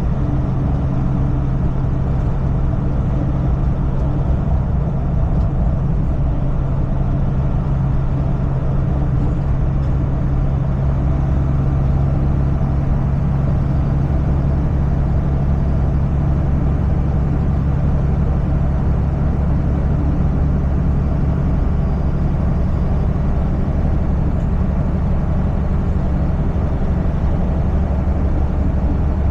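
Semi-truck engine droning steadily at cruising speed under continuous road noise, with no change in pitch or level.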